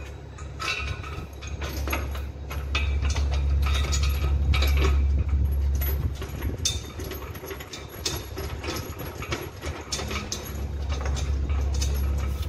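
Irregular metallic clinks and knocks as bolts and a spanner are worked on a steel dining-table frame, over a steady low rumble.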